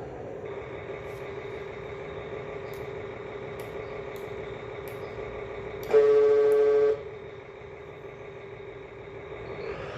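Electronic engine-sound module in a 1/32 scale RC Volvo truck model playing a steady truck engine drone through its small speaker. About six seconds in, a loud horn blast lasting about a second cuts in and stops suddenly.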